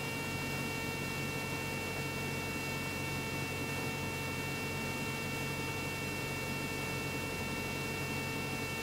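Steady cabin drone of a Cessna 172 on short final, engine and propeller at reduced power, with several thin high tones humming steadily above it and no change in power.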